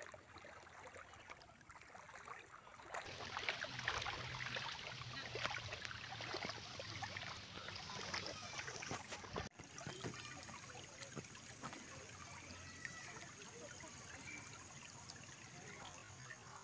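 Shallow stream trickling over a pebble bed, louder and busier for a few seconds, then dropping to a steadier, quieter flow a little past halfway.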